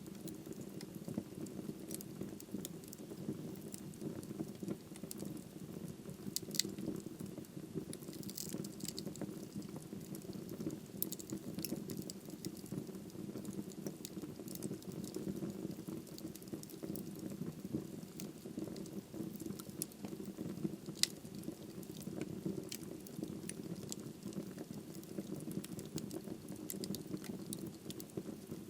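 Wood fire burning in a fireplace: a steady low flame rumble with frequent small crackles and pops from the burning wood.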